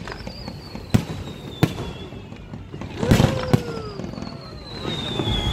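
Aerial firework shells bursting in a series of sharp bangs, roughly a second apart, with two bangs in quick succession about three seconds in. Thin whistling tones fall slowly in pitch over the bangs.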